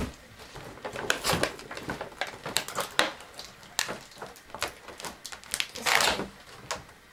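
Stiff clear plastic blister packaging crackling and clicking as it is pulled apart and lifted off a toy truck, with a longer, louder rustle about six seconds in.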